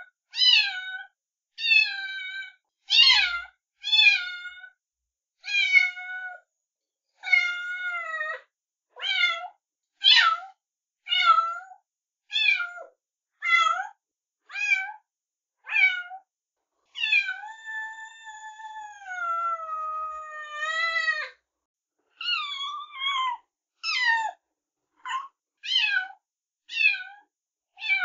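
A cat meowing again and again in short meows, roughly one a second, with one long drawn-out meow of about four seconds past the middle.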